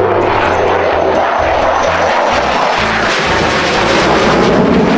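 F-16 fighter jet flying past, its jet engine a loud, steady rushing noise.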